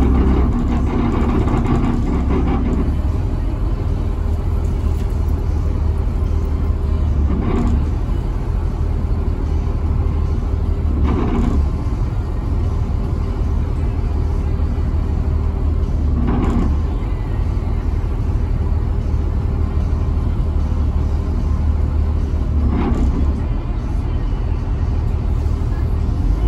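Steady low rumble of a Denning Phoenix Low Floor bus's CAT diesel engine, heard from inside the cabin, with four short knocks or rattles from the bus body spread through.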